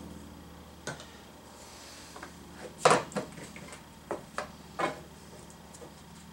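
Knocks and clicks of 3/4-inch PVC pipe and fittings being handled and fitted together, about six in all, the loudest about three seconds in.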